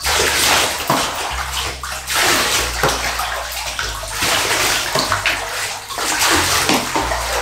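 Water poured from a plastic container over a French bulldog standing in bath water, splashing into the tub in repeated pours.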